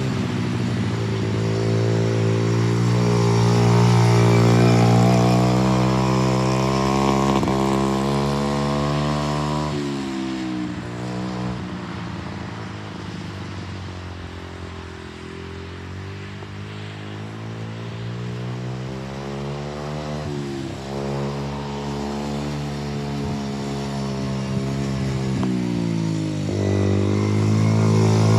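Four-wheeler (ATV) engine running while riding, its pitch climbing and falling several times as the throttle opens and closes, with sharp drops about ten seconds in and again near the end.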